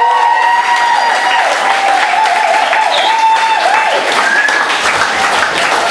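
Audience applauding, with a high, wavering whoop held over the clapping for the first few seconds.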